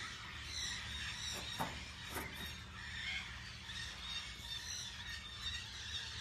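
Faint outdoor ambience with a few faint, brief high-pitched squeaks or chirps scattered through it.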